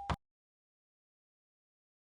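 Dead silence, after a short noisy burst ending in a sharp click cuts off right at the start.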